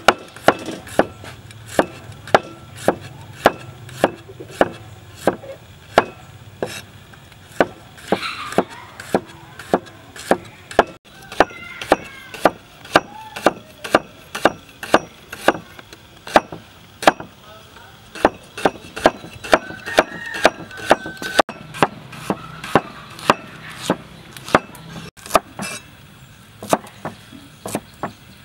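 A steel cleaver chops garlic, shallots and coriander on a wooden cutting board, giving a steady series of sharp knocks of the blade on the wood, two or three a second.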